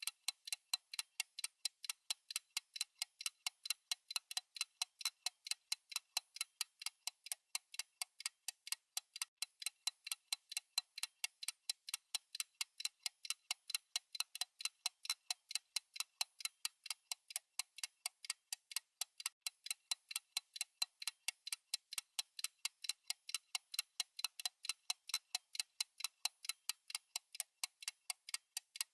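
Fast clock tick-tock sound effect of a countdown timer: sharp, even ticks at about four a second, alternating louder and softer.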